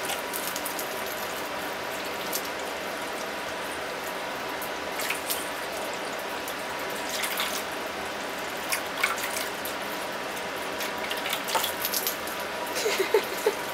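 Drinkwell pet fountain's stream of water pouring steadily into its bowl, with a faint steady hum. Now and then short splashes and clicks as a dog noses and laps at the falling water.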